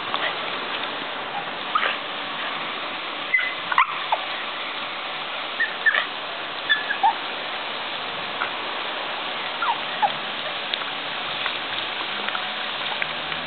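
Steady hiss of a garden hose spray jet, with short high yelps and whines from an American Cocker Spaniel snapping at the water, coming in scattered bunches.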